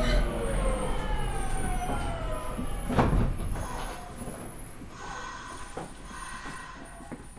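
Nagoya subway 5050 series train's Hitachi GTO-VVVF inverter whining in several tones that glide steadily down as the train brakes and slows, with a thump about three seconds in. The running noise fades as the speed drops, leaving weaker steady tones.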